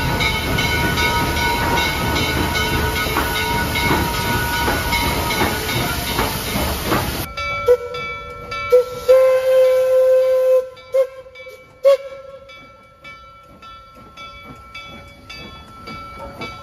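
Steam locomotives: Western Maryland 1309, a 2-6-6-2 Mallet, hissing loudly with a steady whistle chord sounding over the steam. About seven seconds in, a cut to Reading T-1 4-8-4 No. 2102 sounding several short whistle toots and one longer blast. A quieter, even ringing about twice a second follows, typical of the locomotive's bell.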